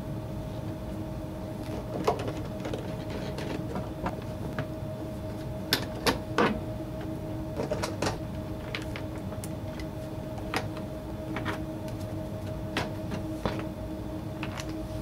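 Scattered clicks and light knocks of hand tools, screws and hard plastic as the screws are taken out of a snow blower's plastic drive belt cover and the cover is worked loose and lifted off. A steady low hum runs underneath.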